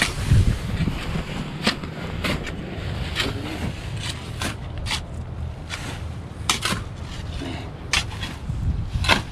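A series of about a dozen short, sharp scrapes and knocks at irregular intervals, over a steady low rumble.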